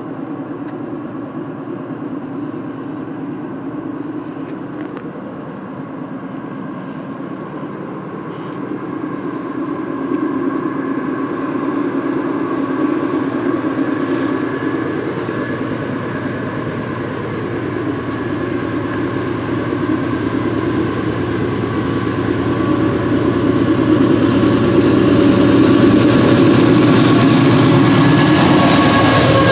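Canadian Pacific GE AC4400CW diesel-electric locomotives approaching at the head of a 200-car potash train: a steady engine drone that grows steadily louder. The lead units pass close near the end, with the pitch dropping slightly as they go by.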